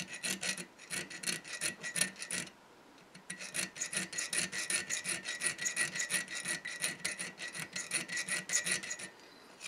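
A round file scraping back and forth across the edge of a steel scratch-stock cutter blade clamped in a vise, in quick short strokes as the cutting profile is shaped. The filing stops briefly about two and a half seconds in and again near the end.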